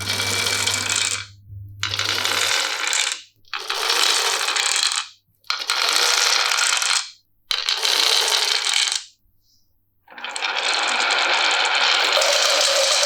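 Marbles rolling and rattling along a handmade marble run of plastic rain-gutter and wooden-rail tracks, in six runs broken by short silences, the last and longest starting about ten seconds in.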